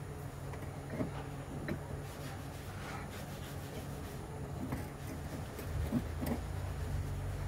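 Light clicks and knocks from hands working wires and fittings inside a car body, a few times, over a steady low background hum.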